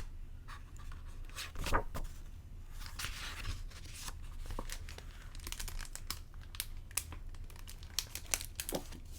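Close-miked crinkling and crackling of something being handled: a scattered run of small sharp clicks and short rustles.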